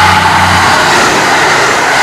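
JR Central KiHa 85 series diesel railcar passing at speed. Its diesel engines give a low steady drone that stops about three-quarters of a second in, leaving a loud rush of wheels and air as the cars go by.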